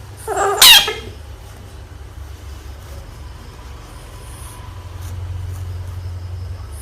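A frog gives one short, shrill scream about half a second in, over a steady low hum.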